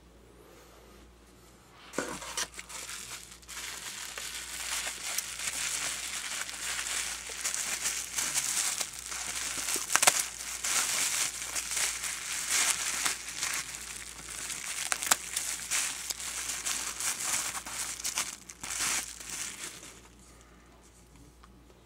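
Plastic bubble wrap crinkling and crackling as it is handled and cut open with scissors, starting about two seconds in and stopping about two seconds before the end.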